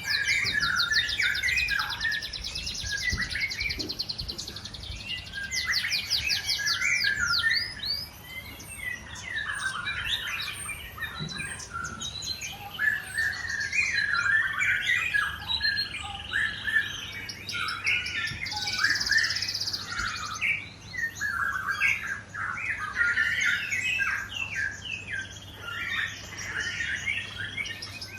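Several white-rumped shamas singing at once: overlapping chirps and varied whistled phrases, with rapid high trills breaking in several times.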